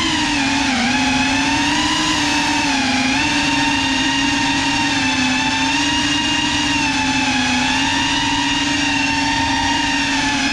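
Electric motors and propellers of a small FPV quadcopter whining steadily, the pitch wavering up and down a little as the throttle changes.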